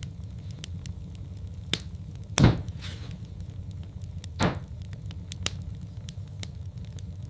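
Wood fire in a fireplace crackling over a steady low rumble, with many small sharp pops and two louder ones, the loudest about two and a half seconds in and another about two seconds later.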